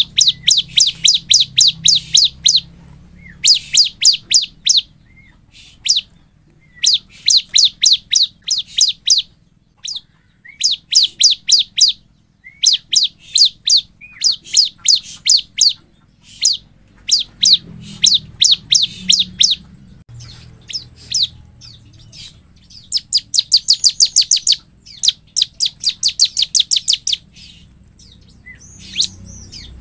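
Bar-winged prinia (ciblek) singing. It gives burst after burst of rapid, high, repeated notes, each burst about one to three seconds long, with short pauses between them.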